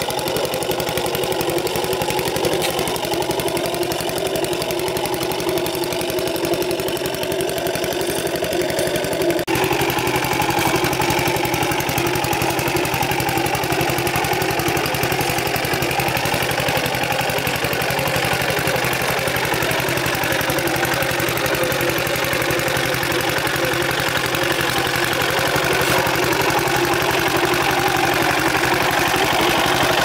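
Engine of a farm plowing machine running steadily with a chugging note. Its sound changes abruptly about nine seconds in.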